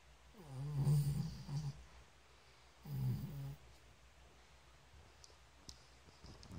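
Snoring: two snoring breaths, one beginning about half a second in and lasting over a second, the next about three seconds in and shorter.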